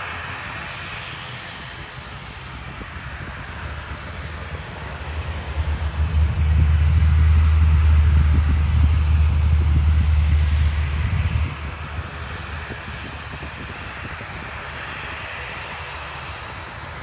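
Aircraft engine noise from a plane taking off or landing: a steady roar throughout. A heavy low rumble builds about five seconds in, is loudest for several seconds, then stops abruptly.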